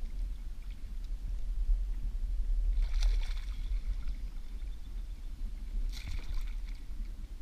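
Water splashing in two short bursts, about three seconds in and again about six seconds in, as a hooked walleye thrashes at the surface beside a kayak while it is being netted.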